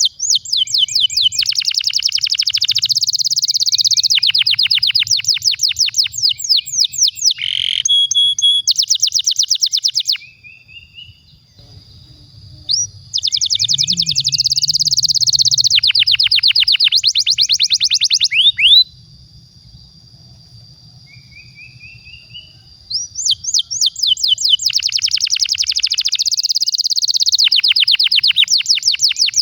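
Canary singing long rolling trills, rapid runs of repeated notes strung phrase after phrase, breaking off twice for a few seconds. A faint low hum sits under the song.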